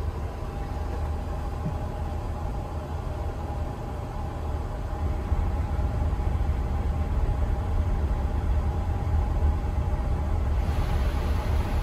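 Steady low rumble with a faint hum, from a Boeing 777-300ER's running Honeywell 331-500 auxiliary power unit and the airflow it drives, heard from inside the flight deck. It grows a little louder about halfway through.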